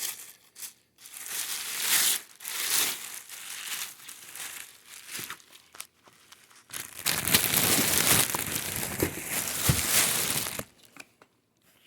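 Plastic packaging crinkling and rustling as it is worked open by hand, in bursts, with a longer, louder stretch in the second half.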